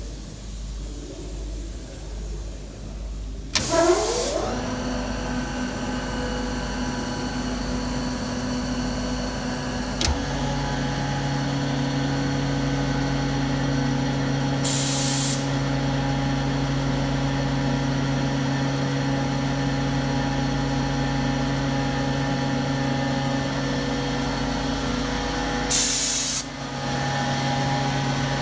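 Grassair S35 11 kW electric screw compressor starting up: a burst of air hiss and a rising whine as the motor spins up about three and a half seconds in, then a steady running hum. About ten seconds in a click brings a deeper, stronger hum, and short blasts of air hiss come twice more.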